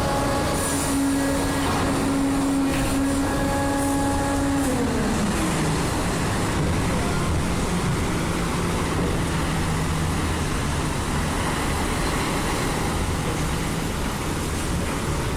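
Engine and machinery noise on a ferry's vehicle deck. A steady engine tone slides down in pitch about five seconds in and then holds lower, under a constant hum.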